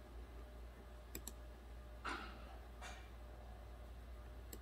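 Computer mouse clicking on screen buttons: two quick clicks a little over a second in and one more near the end, with a couple of softer rustles in between, over a low steady hum.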